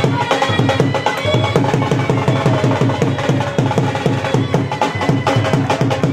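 Background music with a fast, steady drum beat and a melody over it.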